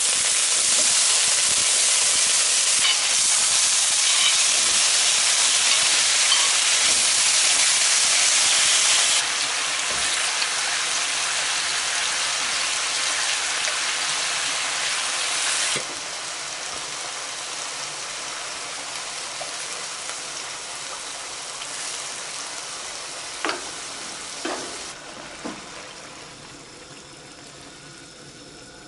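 Octopus and squid pieces sizzling loudly in a hot pan as they are stir-fried. The sizzle drops down sharply twice, then gradually dies away, with a few light knocks near the end.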